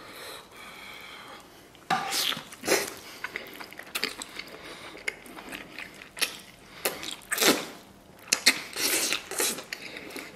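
Close-up mouth sounds of eating stewed lamb ribs: chewing, biting and smacking as meat is pulled off the bone, with several louder slurps, the first about two seconds in and a cluster near the end.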